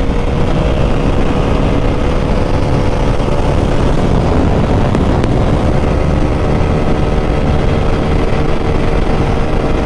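Motorcycle engine running at highway speed, about 100 km/h, under steady wind rush on the camera microphone.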